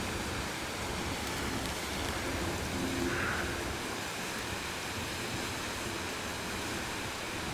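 Steady rush of fountain water splashing, with faint voices of people in the background.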